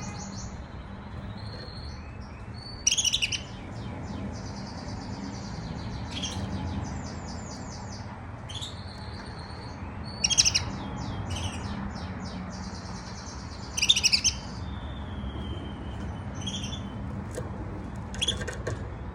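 Young male canary singing its first soft practice song (subsong): rambling warbles and rapid high trills, broken by louder sharp bursts about 3, 10 and 14 seconds in.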